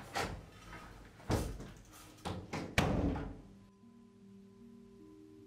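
A wooden room door being handled and shut: a run of knocks and thuds, the sharpest about three seconds in. Soft music of low held notes then comes in.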